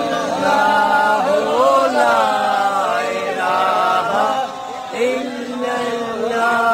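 Several men's voices chanting together in a repetitive devotional prayer chant, with held, drawn-out notes.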